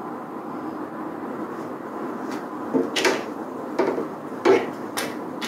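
A mosquito screen's frame knocking and scraping against the window frame and its holders as it is worked into place: a few sharp clacks in the second half, the loudest about four and a half seconds in, over a steady background noise.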